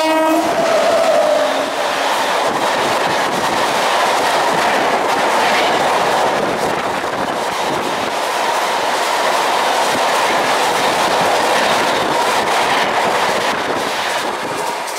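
Tejas Express, hauled by a WAP-7 electric locomotive, passing at speed on the next track, close by: a loud, steady rush and rattle of coaches and wheels on the rails. The locomotive's horn cuts off about a second in.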